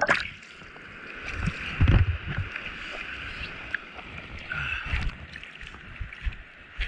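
Sea water sloshing and splashing against a surfboard, heard from a camera mounted just above the waterline, with a steady hiss and low thuds of water hitting the board about two and five seconds in.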